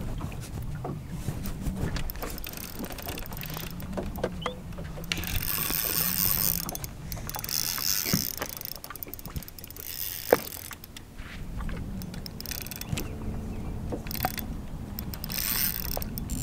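Spinning reel being cranked to bring a hooked bass in, its gears clicking, over a low rumble. A single sharp knock about ten seconds in.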